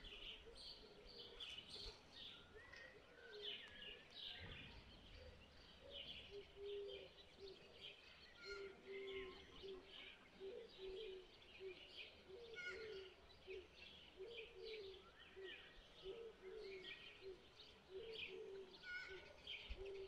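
Faint birdsong from many small birds chirping in quick short notes throughout. A dove coos in repeated low phrases at the start and again from about six seconds in.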